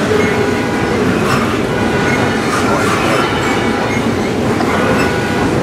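Double-stack intermodal freight train passing close by: a steady rumble and clatter of the well cars' wheels on the rails, with faint high-pitched wheel squeal coming and going.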